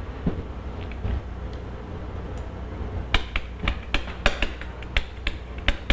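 Chalk tapping and scratching on a chalkboard as words are written, with a quick irregular run of sharp taps in the second half over a low steady hum.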